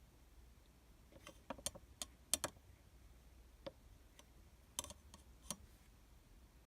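Irregular light clicks and taps, about a dozen, bunched in the first half and then spaced out, over a faint low hum.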